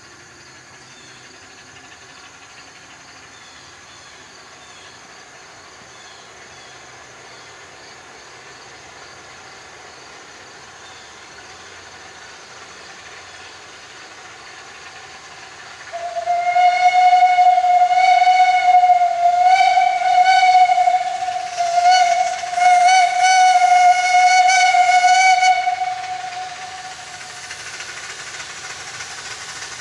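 Steam whistle of a 15-inch-gauge live-steam 4-4-0 locomotive sounding about halfway through: a run of blasts on one steady note with short breaks, the last one long. After it comes the softer hiss of the approaching engine.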